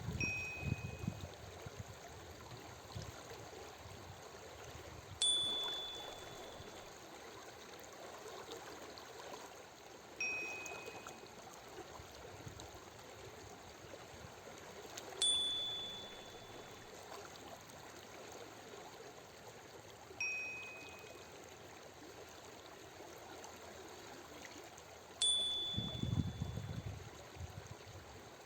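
Flowing water as a steady background, with a single chime ringing every five seconds, alternating between a lower and a higher note. The chimes mark each switch between a five-second in-breath and a five-second out-breath in a paced breathing exercise.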